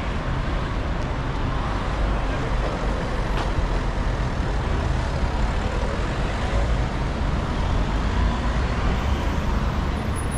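Steady road traffic on a busy city street: cars and buses running past in a continuous rumble heavy at the low end.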